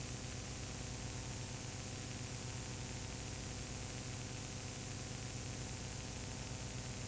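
Steady hiss with a low electrical hum and nothing else: the noise floor of a transfer of a silent 8 mm home movie.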